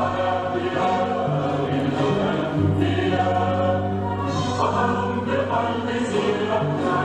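Recorded choral music with instrumental accompaniment: a choir holds sustained chords over steady bass notes that shift a few times.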